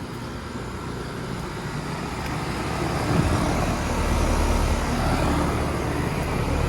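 Outdoor central air-conditioner condensing unit running: a steady low compressor hum under the fan's rushing air. It grows louder over the first few seconds, then holds steady.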